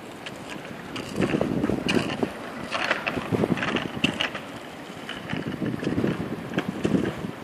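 A child's small bicycle with training wheels rolling over concrete, its wheels rumbling and rattling unevenly, with wind buffeting the microphone. It grows louder about a second in.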